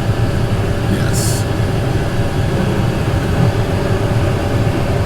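Tractor engine running with a steady, even drone while pulling a grain cart during unloading.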